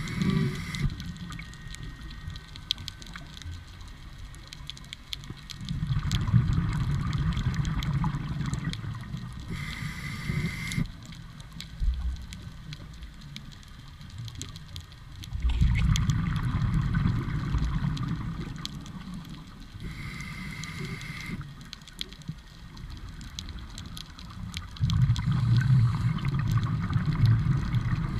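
Scuba diver breathing through a regulator underwater: a short hissing inhale with a thin whistle-like tone, then a longer burble of exhaled bubbles. It repeats about every ten seconds, three breaths in all.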